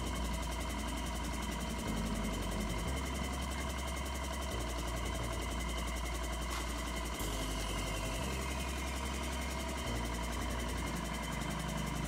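Motorcycle tire changer machine running with a steady mechanical hum while a tire is mounted on the rim. Its low drone steps up and down every second or two.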